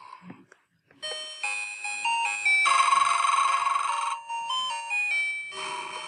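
Sound chip of a 1998 Humfrey Christmas plush bear playing a tinkly electronic melody of stepped, chime-like notes, starting about a second in after a short pause.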